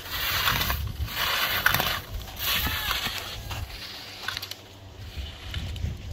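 Ski edges scraping and carving on firm snow through three quick slalom turns, each turn a hissing scrape about a second long, with a sharp knock during the second.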